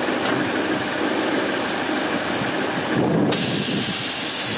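Air Lift 3P air suspension on a Mustang venting air from its bags as the car drops: a steady hiss, with a brief change in tone about three seconds in.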